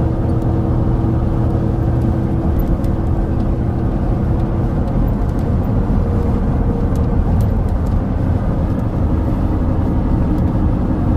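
A car driving at a steady speed: continuous engine and road noise with a deep drone and a faint steady hum, unchanging throughout.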